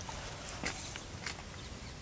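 A few short scuffs and rustles from people moving close to the microphone on dry ground, over steady outdoor background noise.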